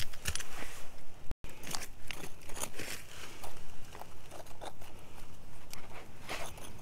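Small metal hand digging tool scraping and prying through gravelly soil, with irregular crunching scrapes and small stones grating against the blade.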